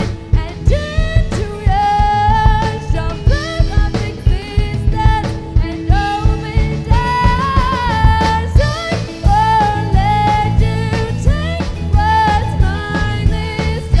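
Indie rock band playing a song live: a lead vocal with long held notes over a steady drum beat and guitar.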